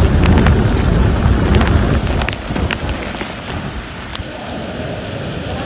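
Heavy typhoon rain pouring, with drops ticking sharply close to the microphone. A deep low rumble is the loudest thing for about the first two seconds, then eases, leaving a steady rain hiss.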